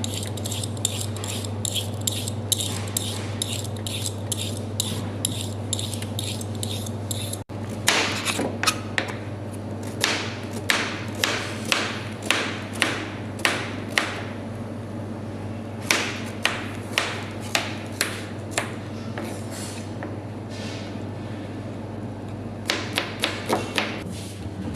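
Knife chopping on a cutting board: runs of sharp strokes at about two or three a second, pausing a few times, over a steady low hum.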